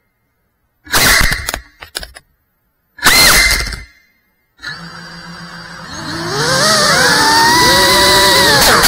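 GEPRC Cinelog 35 cinewhoop drone's brushless motors: two short loud bursts with silence between, then a low idling hum, and about six seconds in the motors spin up into a loud whine whose pitch rises and wavers as the drone lifts off the floor.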